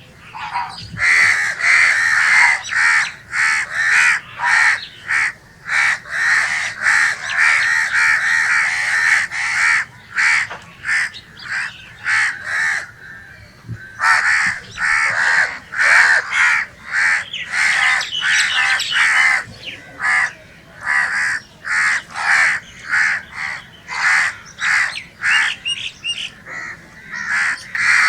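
Crows cawing in a dense run of harsh, repeated calls, with a short lull about halfway through.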